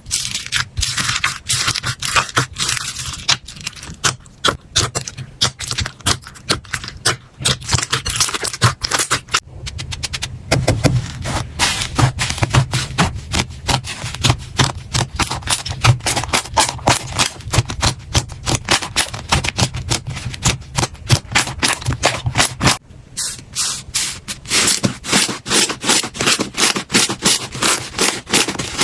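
Slime being squeezed and pressed by hands close to the microphone, making dense, rapid crackling and clicking pops. The sound breaks off and changes character about 23 seconds in.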